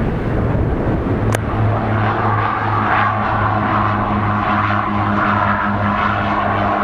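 Fairchild Metro twin turboprop taxiing past, its Garrett TPE331 engines and propellers giving a steady low hum with a hiss above. The hum and hiss fill in about a second and a half in, just after a short click.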